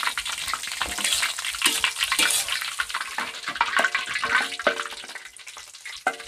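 Stone pestle (ulekan) grinding and crushing wet sambal in a stone cobek mortar: irregular wet scraping and squelching strokes with short stone-on-stone squeaks, growing quieter near the end as the paste is finished.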